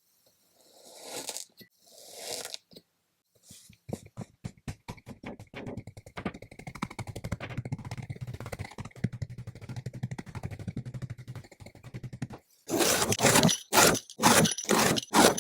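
Kinetic sand being squished and cut. Soft squishes come first, then a long run of fine crackling and crumbling, and near the end several loud crunches.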